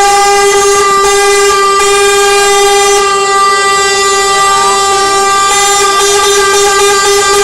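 Truck air horns on a convoy of Volvo FH tractor units, sounding one long, loud, unbroken blast at a single steady pitch.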